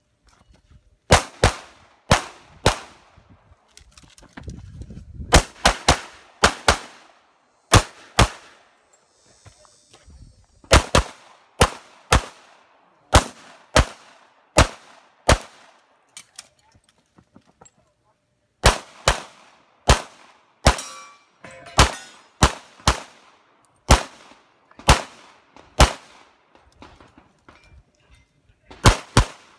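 Competition pistol fired in quick pairs of shots, about a third to half a second apart, string after string. There are short pauses between groups and one longer gap of about two seconds around the middle.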